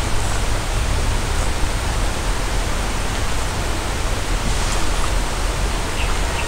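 River water rushing steadily over a small rocky cascade, an even, unbroken rush.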